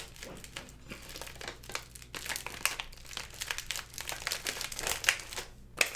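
Crinkling and rustling of a LEGO Dots pack's packet as fingers reach inside and work the small pieces out, in irregular crackles.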